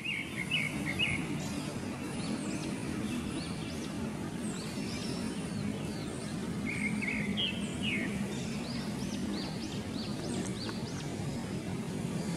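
Birds chirping in short quick series, with many brief rising calls, over a steady low background hum.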